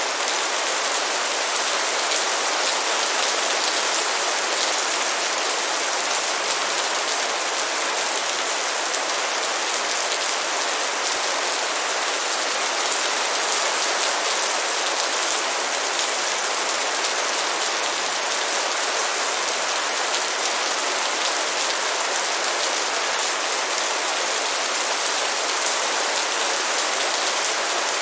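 Light rain falling steadily: an even, unbroken hiss of drops on surfaces, with little low rumble.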